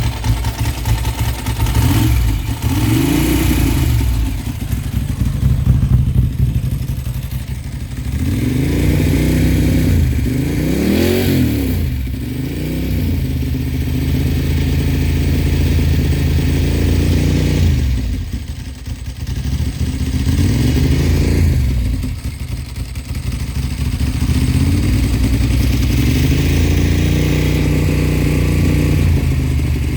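Bimota DB4's air-cooled Ducati V-twin running through its exhaust at idle and blipped several times, the pitch rising and falling with each blip, with a quick cluster of blips about a third of the way in.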